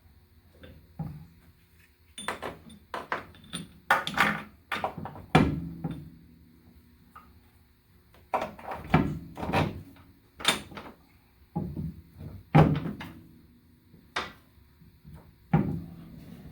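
Irregular clunks and knocks of metal car parts and tools being handled, a few of them ringing briefly, in three bursts with short pauses between.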